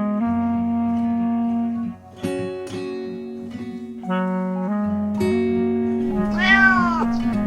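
Background music of plucked guitar-like notes over a bass line, with one drawn-out cat meow near the end.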